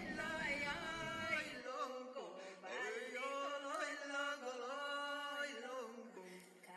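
A man joiking, Sámi chant-singing with a single voice: long held notes joined by rising and falling slides.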